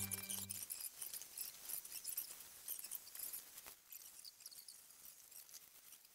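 Dishwashing brush scrubbing a wet plastic dirt-bike rear fender: faint, quick, irregular scratching of bristles on plastic. A steady low hum stops less than a second in.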